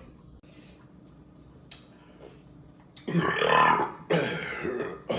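A man belching twice in quick succession after drinking carbonated beer. Each burp lasts just under a second, starting about three seconds in.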